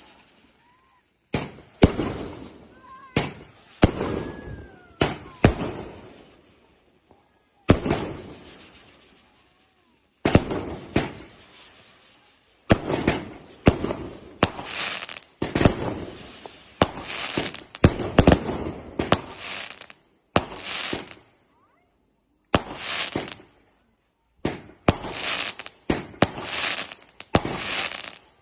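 Fireworks going off in a quick series of shots, each a sharp bang that fades away over about a second. The shots come roughly a second apart at first, then faster and denser from about twelve seconds in, with a few faint rising whistles early on.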